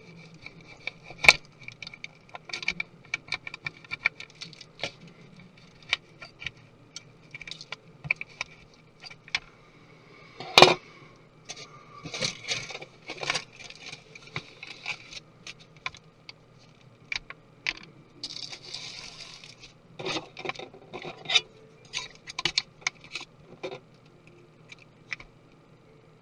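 Small tools and parts clicking, tapping and scraping at irregular intervals while a MacBook Pro laptop is taken apart, with two sharper knocks and a brief scrape, over a faint steady hum.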